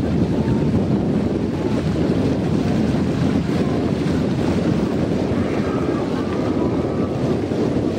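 Steady wind noise buffeting the microphone, heaviest low down, with faint thin high tones from somewhere in the distance over it in the second half.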